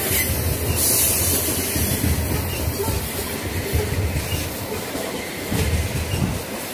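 Freight train of covered hopper wagons passing close by: steel wheels rolling on the rails with a low, uneven rumble and a steady high hiss.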